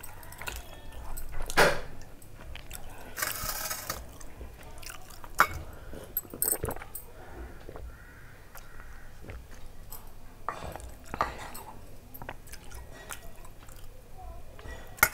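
Close-up chewing and mouth sounds of a person eating, with scattered sharp clicks and short noisy bursts, the loudest about a second and a half in.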